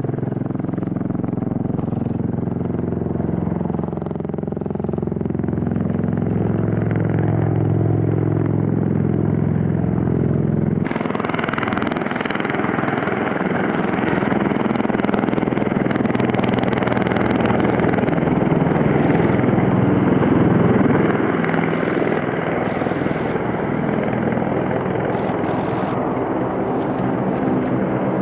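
CV-22 Osprey tiltrotor's twin proprotors and turboshaft engines, first as a steady pitched drone as it approaches, then about eleven seconds in switching suddenly to a louder, rushing rotor-wash noise as it hovers low and touches down on the runway.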